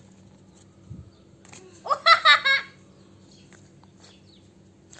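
A young child laughing, one short high burst about two seconds in.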